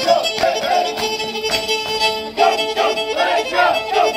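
Lively Romanian folk dance tune for the Călușul, led by a violin playing a quick melody over held notes, with sharp regular beats running through it.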